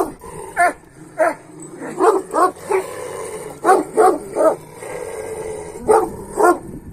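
Kangal shepherd dogs barking, about ten barks in short runs of two or three, with a lower drawn-out sound between the barks.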